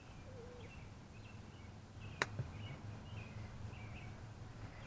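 Birds chirping faintly over a low, steady outdoor hum, with one sharp click about two seconds in.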